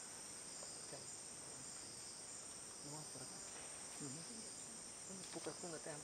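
Steady, high-pitched drone of rainforest insects, with faint voices talking underneath about halfway through and near the end.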